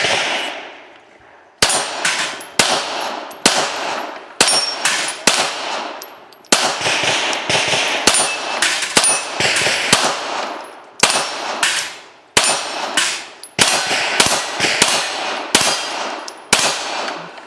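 A long string of pistol shots fired in rapid strings of two or three a second, with brief pauses between strings, in a timed action pistol course of fire.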